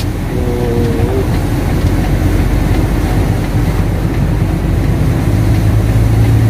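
Engine and road noise heard inside a moving vehicle's cab: a steady low drone, joined about five seconds in by a steady hum.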